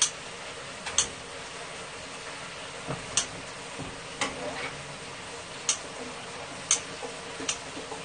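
Cooking utensils clinking and tapping against a pot, about seven sharp irregular knocks, over a steady faint hiss.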